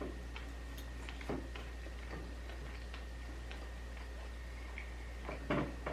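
Light ticking clicks, roughly two a second, over a steady low hum, with a brief louder sound about five and a half seconds in.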